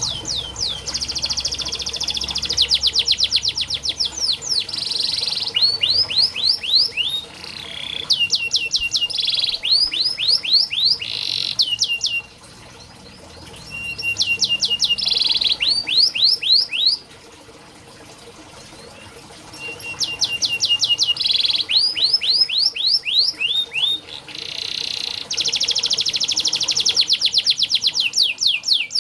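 Domestic canary singing: fast trills of rapidly repeated sweeping notes, phrase after phrase, with two short pauses of a couple of seconds around the middle.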